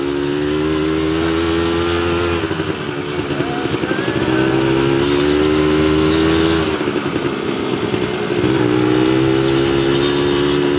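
ATV engine running under throttle: the rider eases off about two seconds in and again near two-thirds through, and the engine picks back up each time.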